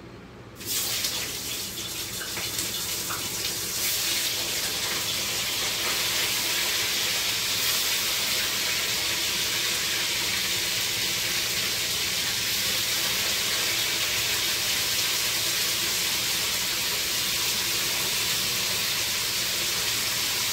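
Pieces of fish laid into hot oil in a kadai, sizzling: a hiss that starts suddenly about half a second in, grows a little louder around four seconds in, then holds steady. A kitchen exhaust fan hums underneath.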